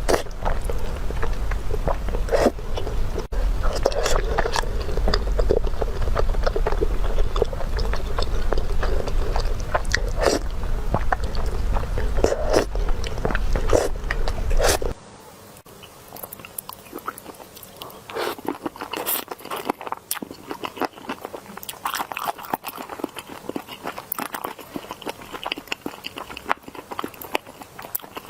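Close-miked eating: biting, chewing and crunching of food, many sharp crisp crunches. About halfway through the background hum cuts out abruptly and the crunching continues quieter and denser.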